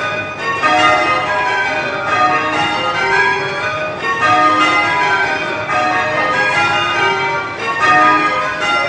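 Change ringing on a ring of eight tower bells, rung in spliced methods: the bells strike one after another in a quick, unbroken stream of changes.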